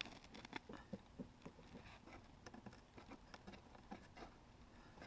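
Near silence broken by faint, irregular light ticks and taps.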